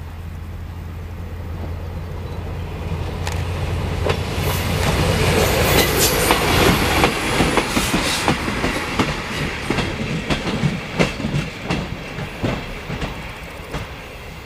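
Two coupled ZSSK class 812 diesel railcars passing close by: a steady low diesel drone grows louder as they approach, then the wheels click rapidly over the rail joints as the cars go past. The sound fades as they move off near the end.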